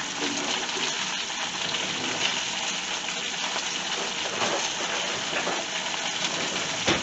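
Fresh spinach wilting in hot olive oil in a frying pan, sizzling steadily. A single light knock near the end.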